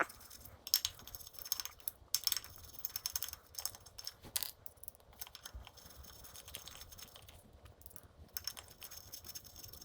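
Scattered light clicks, taps and short scrapes of hand tools and small metal hardware being handled while brake line clamps are unscrewed on a dirt bike, some louder ticks near the start and middle.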